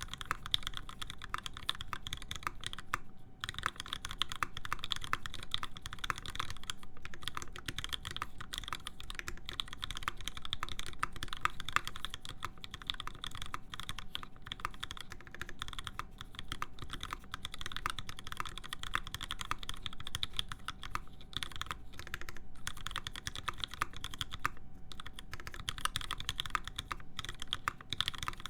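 Continuous rapid typing on a custom mechanical keyboard with lubed Alpaca linear switches, a full aluminium plate and PBT keycaps: dense keystrokes with a few brief pauses.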